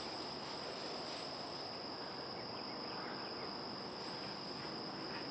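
Steady, unbroken chorus of crickets or other insects, a constant high-pitched trilling.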